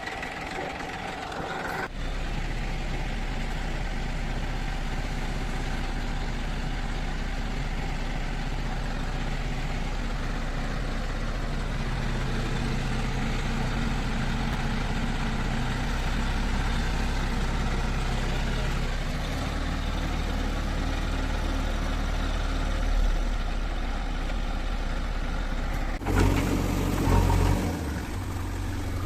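Heavy diesel engine of earth-moving machinery running steadily under work. The sound changes abruptly about two seconds in, and a louder low rumble swells briefly near the end.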